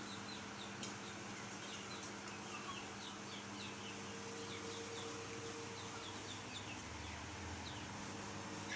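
A flock of chickens, mostly high short peeps and cheeps, scattered throughout over a steady low hum.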